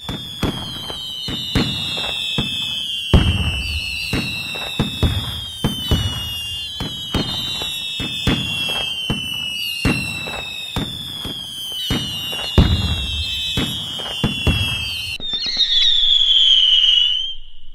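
Whistling fireworks going off in a steady run: a falling whistle about every second and a half, each among sharp bangs and cracks. Near the end the bangs stop, leaving one longer whistle.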